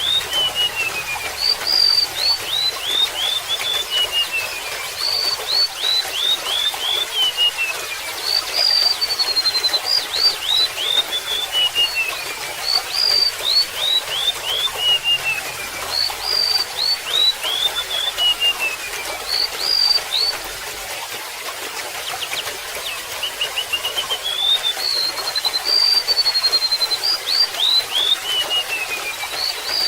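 Golden-bellied gerygone singing: repeated phrases of thin, high whistled notes that slide downward in pitch, one phrase every two to three seconds. A steady trickle of running water underneath.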